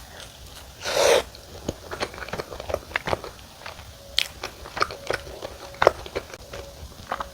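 Close-miked eating sounds of biting and chewing sweet potato wood-fired pizza: many small crunches and wet mouth clicks, with one louder noisy burst about a second in.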